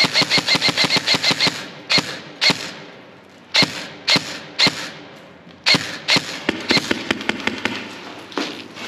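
Airsoft guns firing: a rapid burst of about a dozen shots, then single shots every half second or so, and another quick string a little after the middle.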